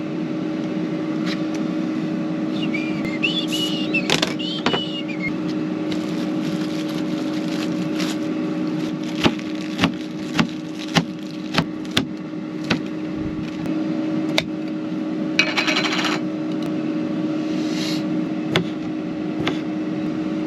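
Knife chopping on a cutting board, with a run of evenly spaced chops about nine to thirteen seconds in and scattered single taps elsewhere, over a steady hum. A brief high chirping comes about three seconds in.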